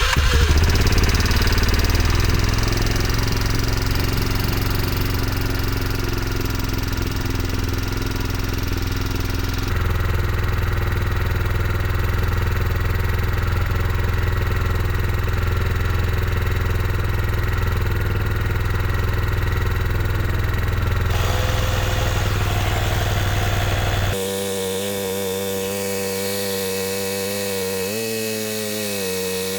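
2004 Yamaha Kodiak 450 ATV's single-cylinder four-stroke engine running steadily on full choke just after starting. About three-quarters of the way through the sound changes abruptly and gets a little quieter, and near the end the pitch dips briefly.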